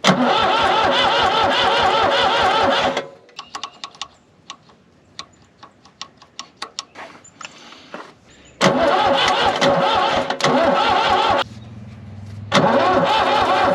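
New Holland L783 skid steer's diesel engine cranked by its starter in three bursts, turning over with a fast, even pulse but not catching: a hard no-start being tried on starting fluid. Between the first two bursts come several seconds of scattered light clicks.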